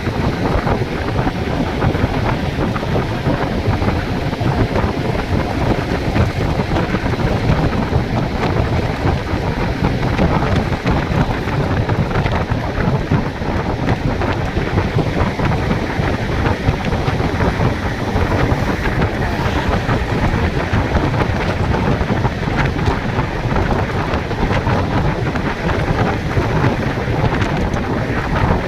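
Steady loud rumble of a moving vehicle, with road noise and wind buffeting the microphone.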